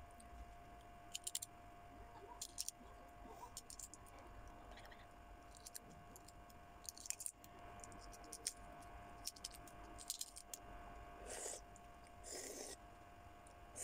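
Balot (boiled duck egg) shell being peeled by fingers: scattered faint crackles and clicks of breaking eggshell. Near the end come two short eating sounds as the egg goes to the mouth, over a faint steady hum.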